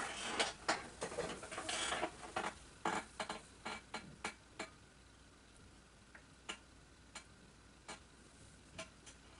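Irregular sharp clicks and taps, dense and mixed with rustling over the first two seconds, then thinning out to single clicks every half second to a second.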